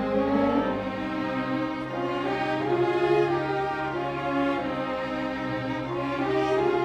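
Orchestra playing a Christmas processional arrangement, with the string section most prominent: violins and cellos bowing sustained notes as a melody moves above held low notes.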